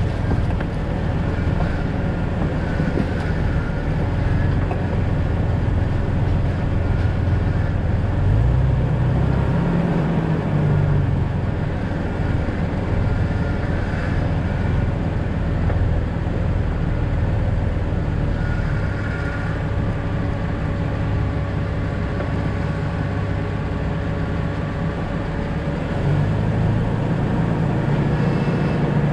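Jeep Cherokee XJ driving, with steady engine and road noise. The engine note rises about a third of the way in, drops back, and rises again near the end.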